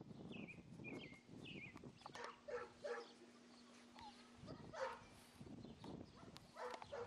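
Six-week-old Labrador retriever puppies giving faint, short whines and yips several times, starting with a few high falling squeaks.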